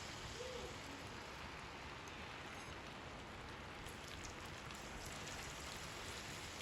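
Egg pakora batter deep-frying in hot oil: a steady, even sizzle.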